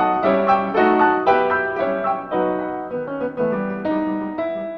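Background solo piano music: a classical piece, with notes struck in steady succession.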